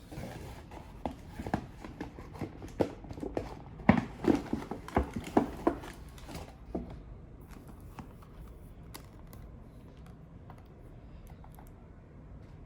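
A quick run of light clicks and knocks from objects being handled up close, thickest over the first seven seconds and then thinning to a few faint ticks.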